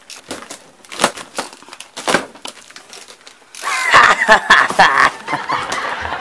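A cardboard box's packing tape being slit with a box cutter and the flaps torn open: scattered scrapes and rustles, then about three and a half seconds in a sudden loud ripping of tape and cardboard as the flaps are pulled back.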